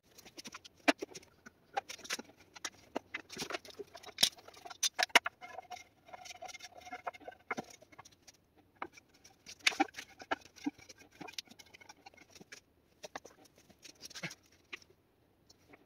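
Wooden boards, dowels and plastic bar clamps being handled and set down: a run of irregular clicks, taps and knocks, thickening into a short rattling patch about six seconds in.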